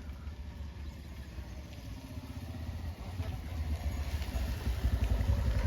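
An engine running with a low, steady rumble, growing louder over the last couple of seconds.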